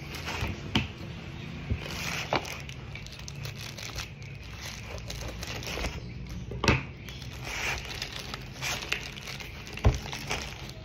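Packaging crinkling and tearing as a parcel is opened by hand, with a few sharp knocks or clicks in between, the loudest two in the second half.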